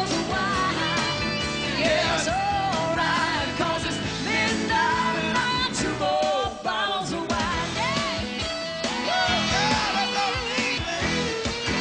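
Live rock-and-roll band playing, with singing over electric guitar.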